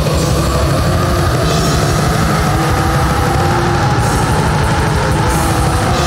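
Death metal: heavily distorted guitars and drum kit playing loud and dense without a break.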